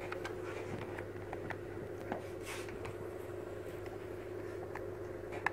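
Scattered small clicks and rubbing of plastic as a toy drone's remote controller is handled and its buttons pressed, over a steady low hum.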